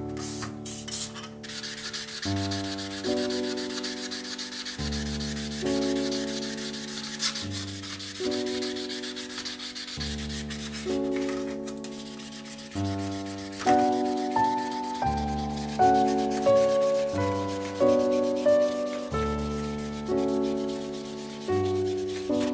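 Hands rubbing and scrubbing old steel chisel blades in a metal tray, a steady scratchy rubbing of fine rapid strokes. Under it, slow background keyboard music, chords changing about every second and a half, with a melody coming in about halfway.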